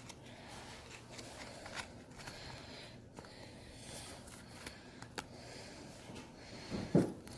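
Quiet handling of Pokémon trading cards and packs: faint rustles and small clicks, with one soft, louder thump about seven seconds in.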